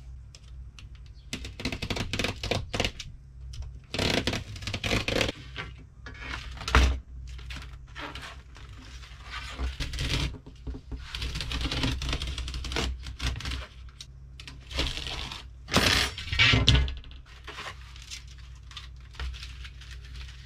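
Rattan cane webbing being handled and cut into pieces: irregular crackling and scraping of the stiff woven cane, with a few sharper, louder cracks about seven and sixteen seconds in, over a steady low hum.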